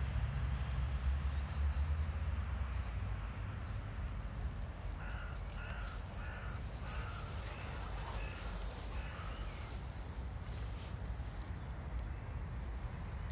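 A bird calling: a run of about seven short, repeated calls between about five and nine seconds in. Under them is a low rumble on the microphone, heaviest at the start.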